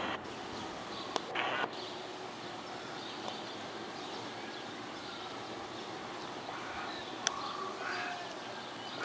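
Two single sharp cracks of distant gunfire, about six seconds apart, over steady outdoor background noise.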